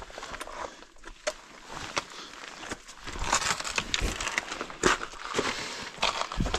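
Hiking boots and trekking-pole tips on rock and loose gravel: irregular sharp taps, clicks and scuffs as the walker steps down a steep rocky gully.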